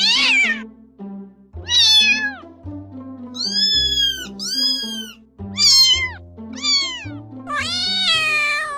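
Domestic cat meowing about seven times, each call sliding down in pitch, two high ones in the middle and a longer one near the end. Soft background music with held notes plays under the meows.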